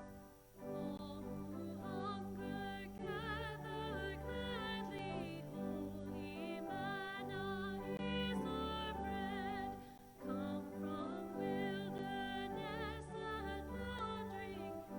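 A singer with a strong vibrato singing a sacred song in a classical style over sustained organ chords, with a short pause about ten seconds in.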